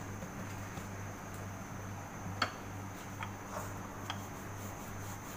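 Wooden rolling pin being handled and set down on dough on a board, giving a few sparse sharp clicks, the loudest about halfway through, over a steady low hum.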